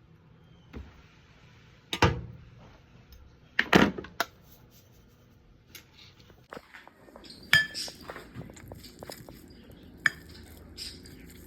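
Kitchen clatter of dishes, pans and cutlery clinking and knocking, with the sharpest knocks about two and four seconds in. A faint steady hiss joins in after the middle, under quicker small clinks.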